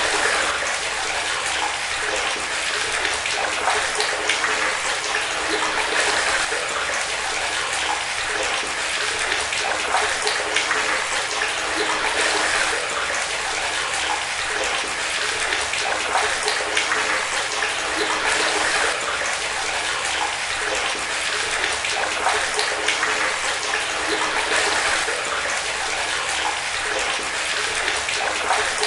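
Steady stream of water pouring and splashing into standing water, unbroken and even.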